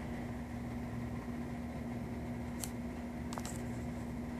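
Steady mechanical hum with a constant low tone, with two faint clicks a little past the middle.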